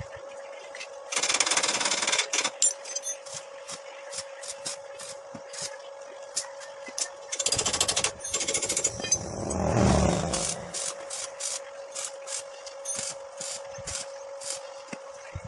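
Metalworking tool noise: a steady hum under rapid clattering, with two bursts of dense rattling crackle and a louder low rumble that swells and fades about ten seconds in.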